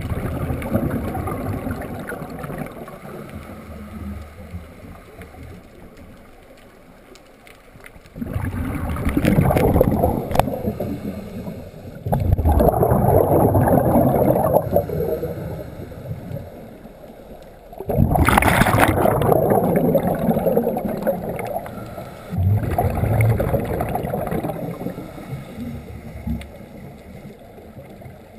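Scuba diver's exhaled bubbles gurgling out of the regulator past an underwater camera housing, in repeated bursts a few seconds long with quieter water noise between breaths.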